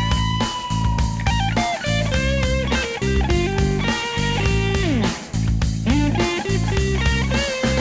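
Background rock music: an electric guitar playing a melodic lead with bends and slides over bass and a steady drum beat.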